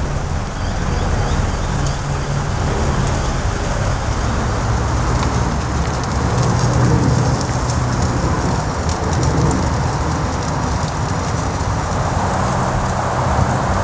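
A thick bone-in ribeye steak sizzling on a hot grill grate over a charcoal fire, a steady hiss with scattered crackles and pops from the burning coals.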